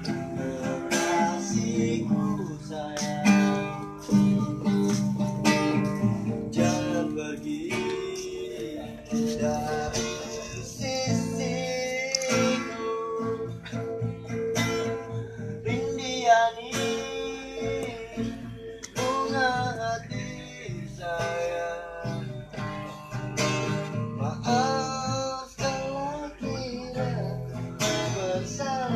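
Acoustic guitar strummed and picked in a song, with a voice singing along.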